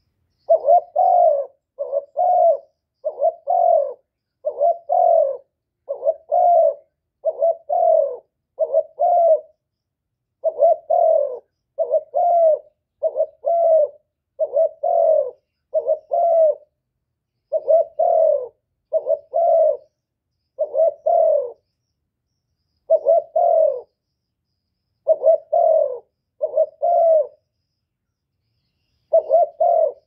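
Spotted dove cooing in a long run of short, low coos, mostly in pairs or threes, with brief pauses between groups.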